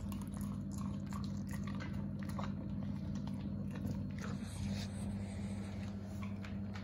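A dog crunching and chewing raw chicken wing bones, with irregular sharp crunches, over a steady low hum.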